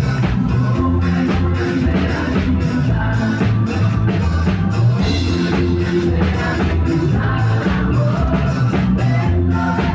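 Live rock band playing loudly, the drum kit keeping a steady beat under strong low bass notes.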